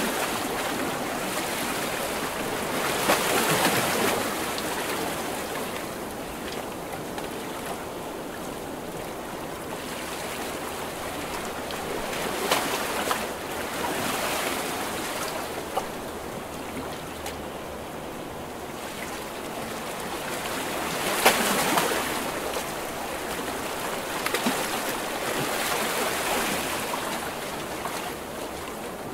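Ocean waves breaking on shore: a steady wash of surf with several louder crashes swelling and falling back, about every eight to ten seconds.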